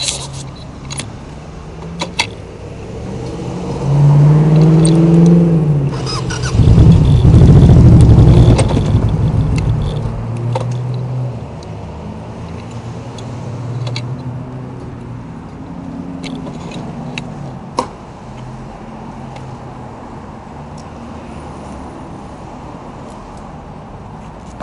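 A touring motorcycle's engine running close by as the bike is ridden a short way and stopped. It is loudest from about four to ten seconds in, then settles to a lower steady note that fades out, with a few sharp clicks along the way.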